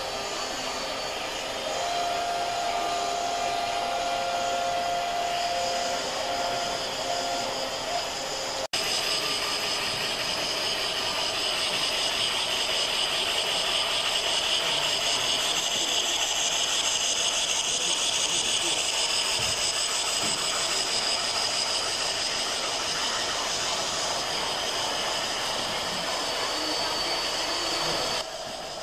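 Steady hiss from a Gauge 1 model narrow-gauge steam train running on the layout, with a faint steady whine for a few seconds early on. There is a brief dropout almost nine seconds in, after which the hiss is a little louder and higher.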